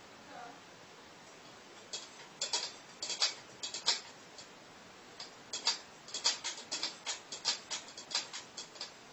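Cat pawing at an empty stainless steel food bowl, its claws clicking and tapping on the metal in irregular runs of several clicks a second, starting about two seconds in.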